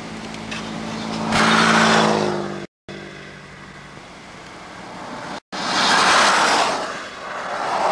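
Three vehicles pass close by on a highway, each a rising and falling rush of tyre and engine noise; the first carries a faint engine tone that dips a little as it goes by. The sound cuts out completely for a moment twice, after the first pass and just before the second.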